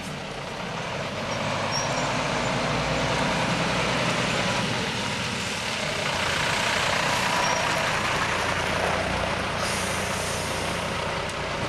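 Fire engines' diesel engines running as the trucks drive slowly past close by, first a Mercedes-Benz and then an Iveco, the engine and tyre noise growing louder over the first couple of seconds and staying steady. A brief hiss comes near the end.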